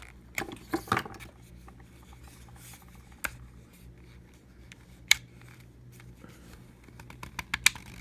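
Scattered sharp clicks and taps from a keypad deadbolt lock being handled and tried, which is not turning, over a faint steady low hum.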